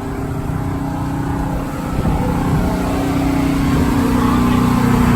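An engine running steadily, slowly getting louder and rising slightly in pitch.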